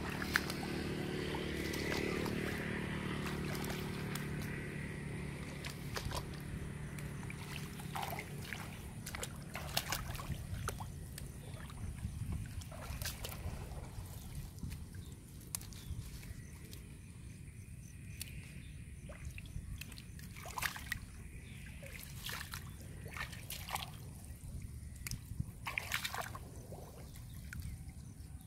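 Shallow muddy water sloshing and trickling as someone wades through it and pulls plants up from it, with scattered short sharp clicks and splashes.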